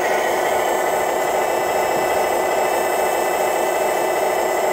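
Radio-controlled Wedico Cat 966 wheel loader model running steadily while raising its loaded bucket: an even mechanical hum with faint, thin high whines above it.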